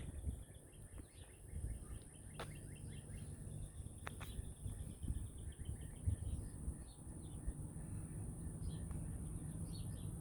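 Small birds chirping in short repeated notes over a low, uneven rumble, with two sharp clicks about two and a half and four seconds in.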